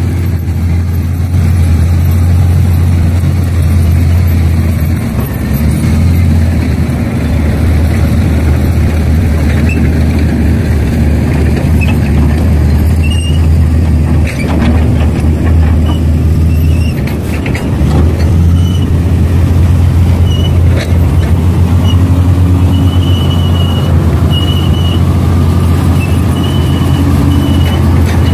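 Heavy diesel earthmoving machinery running steadily under load, a loud low drone, with some knocking and clatter about halfway through and short high squeals repeating in the later part.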